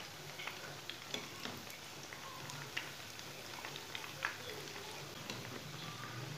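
Breaded snacks deep-frying in hot oil: a steady sizzling and bubbling, with irregular sharp pops and crackles scattered through it.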